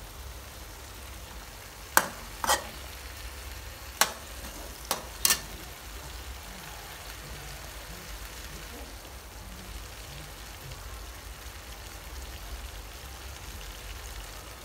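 Okra and beef frying in a stainless-steel wok. A metal spatula clacks sharply against the wok about five times in the first half, then only the steady frying sizzle remains.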